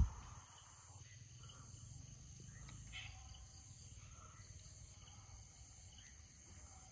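Faint steady high buzz of insects such as crickets over a low steady rumble, with one brief sharp knock right at the start.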